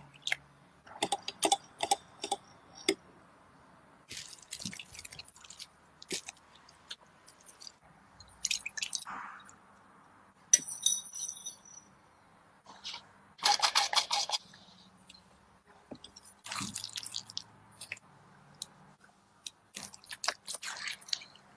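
Wire whisk clinking and scraping against a glass mixing bowl in short bursts while stirring a thick chocolate batter, with liquid poured into a glass bowl partway through.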